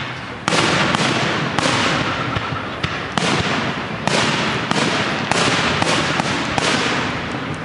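Aerial fireworks bursting in quick succession, with loud bangs every half second to a second and dense crackling between them.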